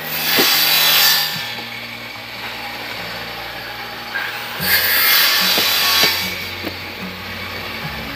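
Two long scraping strokes on wood, each about a second and a half, over background music with low sustained notes.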